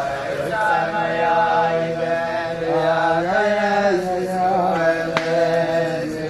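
A group of men singing a slow melody together, holding long notes that move up and down in pitch together. There is one sharp click about five seconds in.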